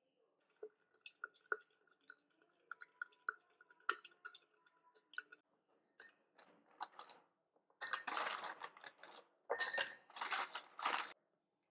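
A plastic measuring spoon stirring instant coffee and sugar in a glass jar, ticking and lightly clinking against the glass. Then ice cubes clatter into the jar, with two loud clattering spells in the last few seconds.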